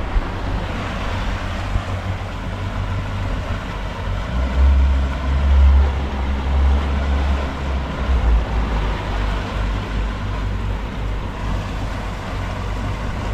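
Outboard engines of a 37-foot Freeman boat running, a steady low rumble that swells for a couple of seconds around the middle.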